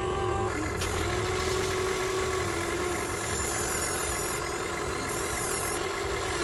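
Electric motors of a Huina 1593 RC excavator whining steadily, the pitch dipping slightly now and then.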